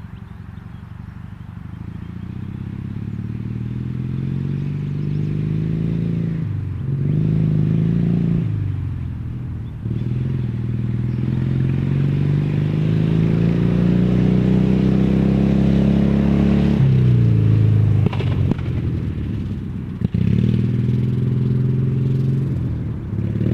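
Small lawn-tractor engine breathing through crushed tin-can exhausts, revved up and down as the tractor drives. The pitch climbs and falls several times, with the longest climb ending in a sharp drop near the end. The cans add a metallic rattle.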